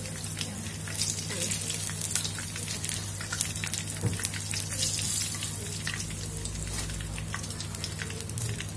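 Hot oil in a wok sizzling and crackling around deep-fried tofu nuggets as they are lifted out to drain, with scattered sharp pops over a steady hiss.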